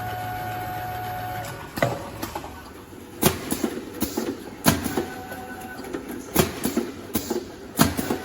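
Bottle production line machinery running in a regular cycle: a sharp knock about every one and a half seconds, lighter clicks between, over a steady hum. A held tone sounds for the first second and a half.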